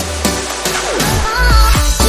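Background electronic dance music with a heavy bass, a steady kick-drum beat and a synth melody coming in about halfway through.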